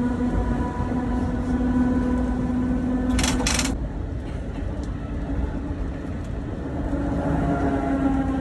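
Historic Vienna tramcar M 4077 running, its motors and gears giving a steady hum. About three seconds in there are two short, high hissing bursts. Near the end the whine begins to rise in pitch as the tram speeds up.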